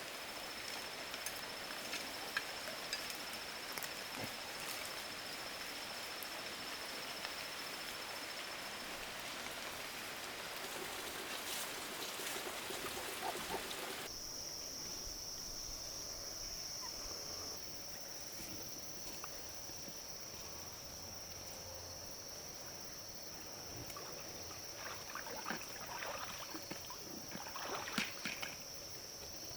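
Running water for about the first half, with a faint steady insect drone beneath it. Partway through the water noise cuts off, leaving the insect drone as a steady high note, with a few light knocks near the end.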